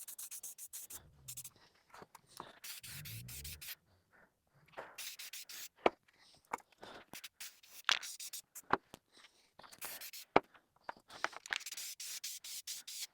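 Light sanding of wooden letters with 150-grit abrasive: an on-and-off rubbing hiss with gaps between passes, dotted with sharp clicks and knocks.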